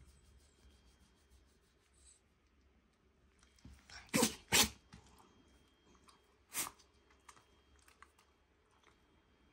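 Shiba Inu sneezing: two quick sneezes about four seconds in, then a third about two seconds later.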